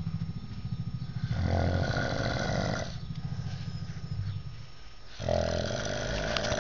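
A man snoring in his sleep: a low, rattling snore throughout, with two longer, louder snoring breaths, one about a second and a half in and another about five seconds in.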